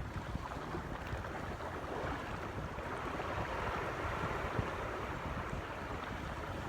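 Wind rumbling on the microphone over a steady wash of water.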